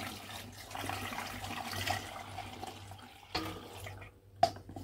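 Banana wine being poured through a funnel into a large plastic bottle for aging, a steady rush and splash of liquid filling the bottle. The pour stops about three seconds in, followed by two short knocks.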